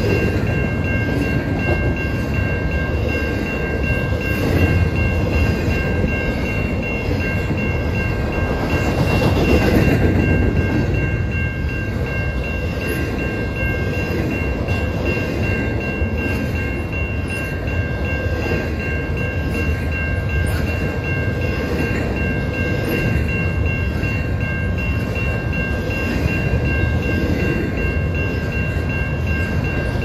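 Double-stack container train's well cars rolling past: a steady rumble and clatter of steel wheels on the rails, swelling briefly about ten seconds in. A steady high whine runs over it.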